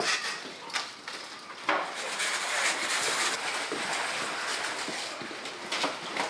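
Bamboo cormorant baskets and their slatted wooden lids being handled. Sharp wooden knocks come at the start, about a second and a half in and near the end, with a long rushing, rubbing noise in between.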